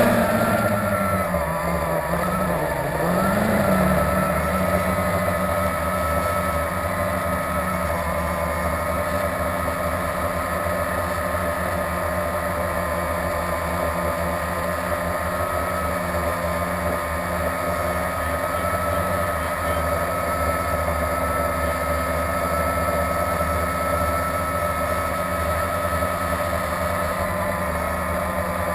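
Blade 350QX quadcopter's brushless motors and propellers whining steadily as it hovers, heard through its onboard camera. The pitch wavers up and down in the first few seconds, then holds steady.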